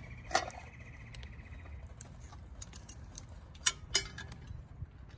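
Aluminium camp cookware clinking as it is handled and set down: a light clink about half a second in, then two sharp metallic clicks close together near four seconds, over a low steady rumble.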